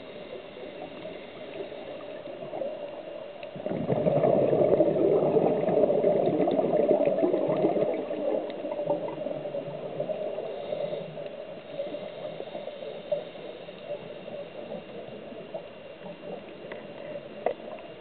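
Underwater audio through a camera housing: a scuba diver's exhaled air bubbles gurgling up past the camera in a loud rush starting about four seconds in and fading over the next four seconds, against a steady muffled underwater hiss. A few small knocks near the end.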